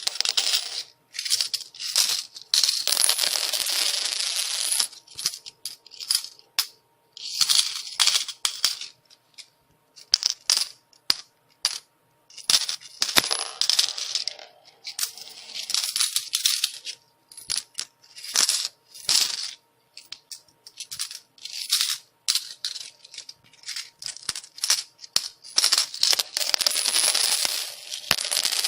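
Coins falling and clinking on a hard surface in repeated bursts. Runs of many coins jingling at once lasting a few seconds alternate with scattered single drops and short pauses.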